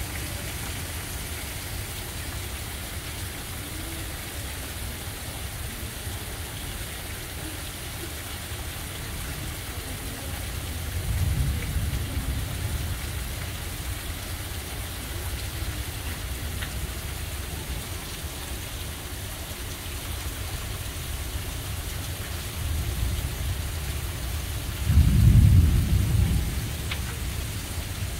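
Heavy rain pouring steadily in a thunderstorm, with a low roll of thunder about eleven seconds in and a louder rumble of thunder near the end.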